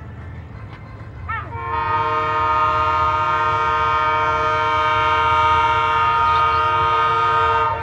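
Diesel freight locomotive's multi-note air horn sounding one long steady blast of about six seconds. It starts about a second and a half in and cuts off sharply near the end, over a low rumble.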